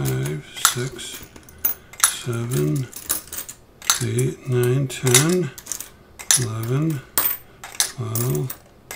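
Silver Washington quarters clinking as they are picked from a pile and dropped one at a time into a clear coin tube, with a man's voice counting the coins aloud, one short word after another.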